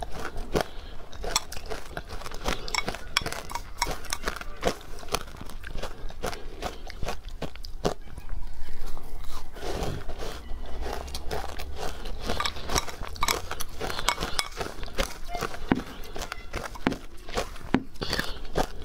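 Close-miked crunching and chewing of soft, powdery ice coated in matcha powder: a dense run of small crisp crackles, with a louder bite a little before halfway.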